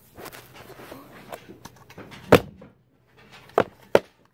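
Plastic slime containers and their holder being handled: low scuffing and rubbing, a sharp plastic click a little over two seconds in, and two more clicks near the end.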